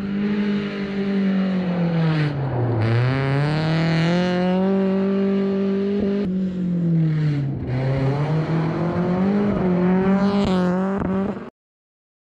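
Rally car driving hard past on a loose gravel stage, its engine revving up and falling away repeatedly through the gears and corners, with sharp drops in revs at about three seconds and again at about seven and a half. The sound cuts off suddenly near the end.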